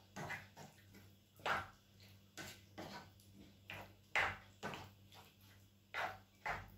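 Spatula stirring thick chili of minced beef, red kidney beans and tomato sauce in a pan: irregular wet scraping strokes, roughly two a second.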